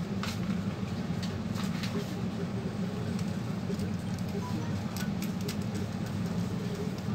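Scattered light clicks and taps of a screwdriver and small parts as a Dell Inspiron 1545 laptop's cooling fan is unscrewed and lifted out of its metal chassis. Under them runs a steady low background hum.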